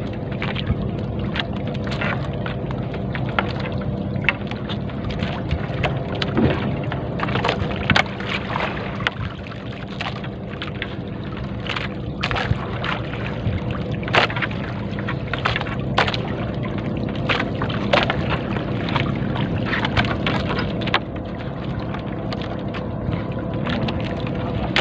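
A three-ply trammel net being hauled by hand into a small wooden boat, with irregular sharp clicks and knocks as the net and its floats come over the side. Under it runs a steady engine hum.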